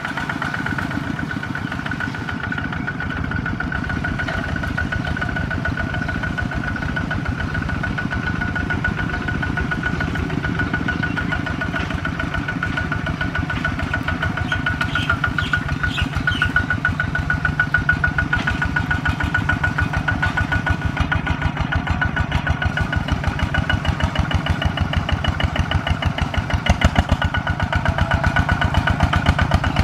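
Single-cylinder diesel engine of a walk-behind two-wheel tractor (Kubota ZT140) running steadily under load while it pulls a plough through turf, with a fast, even beat of firing strokes. It gets a little louder about halfway through.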